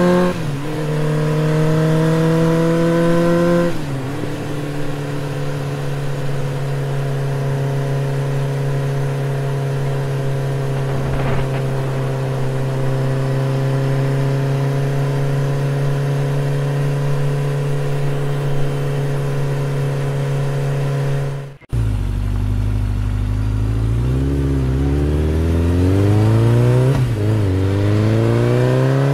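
Motorcycle engine pulling through the gears, its note climbing and falling back at each shift, then holding a steady cruising note for most of the run. It cuts out for a moment about three-quarters through, then climbs through the gears again.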